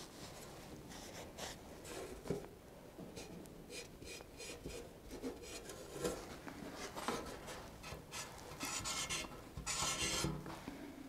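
Sheet-steel patch panel rubbing and scraping against a rusty inner fender as it is shifted into place and marked, in short scratchy strokes with a longer scrape near the end.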